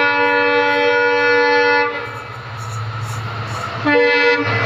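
Indian Railways diesel locomotive sounding its horn as it approaches at speed: one long chord that cuts off about two seconds in, then a short second blast near the end, with the train's low running rumble in between.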